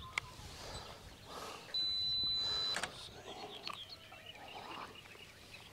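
An electronic beep: one steady, high, pure tone lasting about a second, near the middle. A few faint clicks come before and after it.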